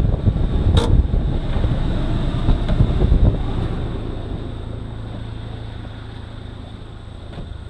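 Vehicle engine running loud and rough for about three seconds, then settling to a quieter steady idle, with a sharp click about a second in.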